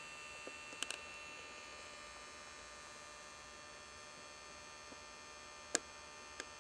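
Steady electrical hum with a faint high whine made of many thin tones, broken by a few sharp clicks: two or three close together about a second in and a louder single click near the end.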